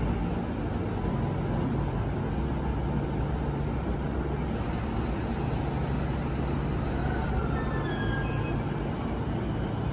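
JR E233-1000 series electric train standing at the platform with a steady low hum from its equipment. From about 7 seconds in, a faint rising whine from its inverter-driven traction motors marks the train starting to move off.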